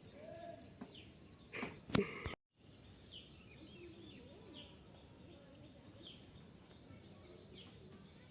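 Faint outdoor ambience with birds chirping: short high calls and falling whistles that repeat every few seconds. A sharp click about two seconds in, then the sound cuts out for a moment.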